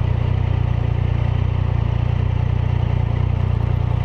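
Triumph Sprint 1050's three-cylinder engine idling steadily, an even low pulse.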